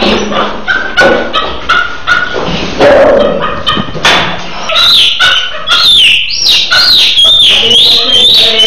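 Monkey screaming in distress as a keeper grabs it: a run of high-pitched shrieks, about two a second, starting about halfway through, each one rising and then falling. Before the screams come knocks and thumps from the scuffle in the cage.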